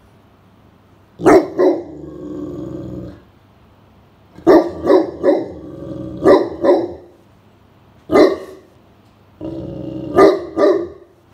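Great Pyrenees barking in groups of one to four deep barks, with drawn-out low growls after the first pair and before the last group: alert barking at someone approaching the house.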